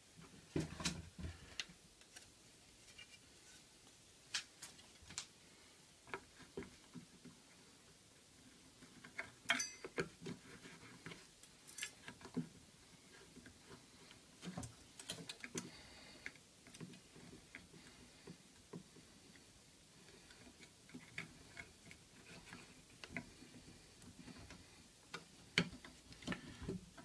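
Faint, irregular light clicks and taps of a hand fretsaw and a pine board being handled, as the saw's thin blade is fitted through a drilled hole in the board.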